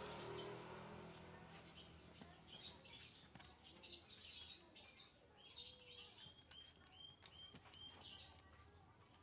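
Faint clicks and scrapes of hands handling and pressing a calculator's plastic back cover into place. In the second half comes a run of about six short high chirps, evenly spaced.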